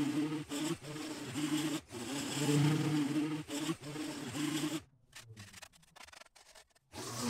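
Handheld gas-powered lawn tool running, its head scraping into bare dirt and grass. The sound cuts out about five seconds in, leaving only a few faint taps.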